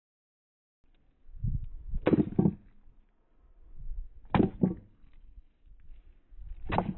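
A hand-held stone beating ormers (abalone) against a granite rock to tenderize and flatten them: five sharp knocks, in two pairs and then a single one, about two seconds apart.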